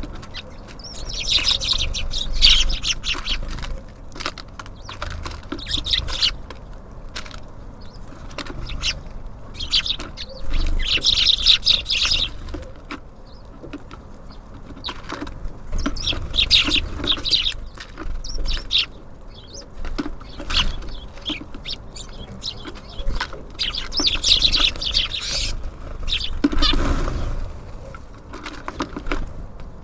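Small birds at a feeder: bursts of chirping and quick pecking or wing-flutter taps come and go every few seconds. A louder, lower whoosh comes near the end.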